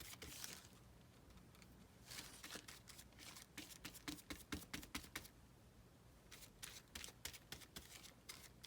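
Faint, scattered light clicks and rustles of glue being spread by hand over a paper page.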